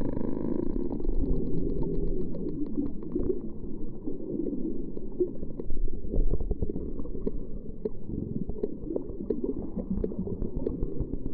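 Dolphin clicks heard underwater: a fast, even train of clicks in the first few seconds, then scattered single clicks, over loud low-pitched water noise.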